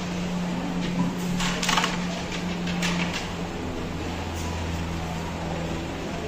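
Carrom striker flicked into the wooden coins: a sharp click about a second in, a quick run of clacks half a second later as the pieces strike each other and the board's frame, and a couple more clicks near the three-second mark. A steady low electrical hum runs underneath.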